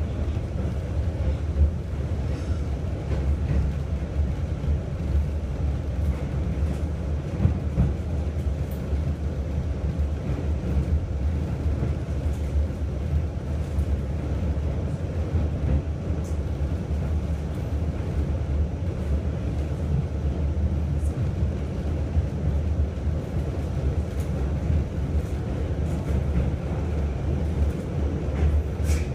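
New York City subway train running at speed, heard from inside the car: a steady low rumble of wheels on the rails, with a few faint clicks.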